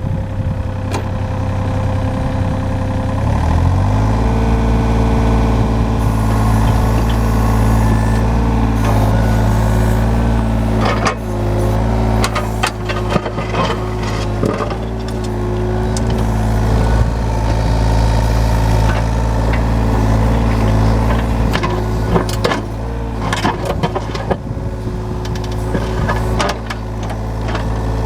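John Deere 35G mini excavator's Yanmar diesel engine running, its speed stepping up about three to four seconds in and then holding steady. Repeated clanks and knocks sound over the engine from about six seconds in.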